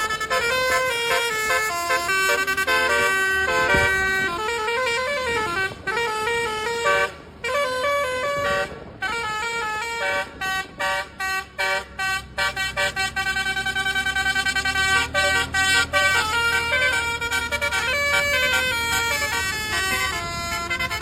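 Bus 'telolet' musical air horn playing a fast melody of stepped notes, with a few sliding notes and choppy, rapidly pulsed passages.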